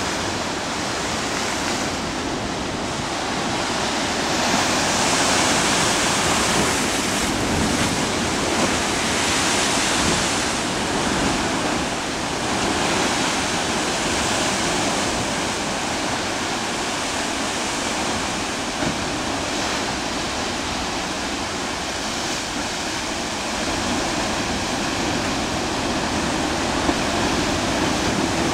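Heavy ocean surf surging and breaking through a narrow rocky inlet: a continuous rush of churning white water that swells louder each time a wave drives in.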